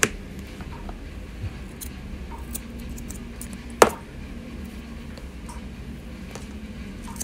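Kerry TP-55S mini grooming scissors, one blade serrated, snipping fur around a dog's paw pads: scattered soft clicks of the blades, with one sharper click about four seconds in, over a faint steady hum.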